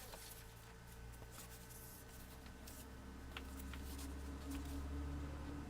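Acer Aspire One D250 netbook's cooling fan running with a low hum that grows louder about halfway through. This is the humming, growling fan noise the netbook was brought in for.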